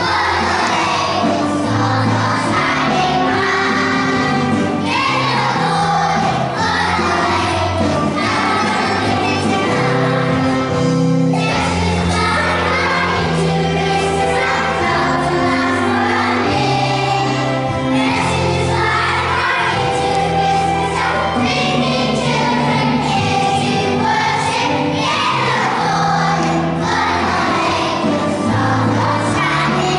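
A song for a children's nativity play: music with a steady bass line and a group singing over it.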